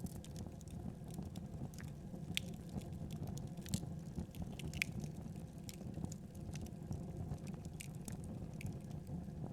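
Wood fire burning in a fireplace: irregular crackles and small pops over a steady low rumble of flames.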